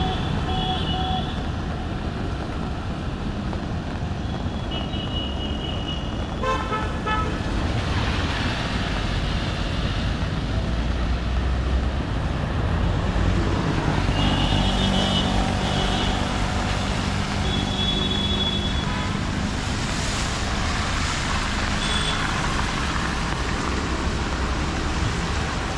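Traffic on a wet city road: a steady rumble of engines and tyre hiss, with short vehicle horn toots several times through it.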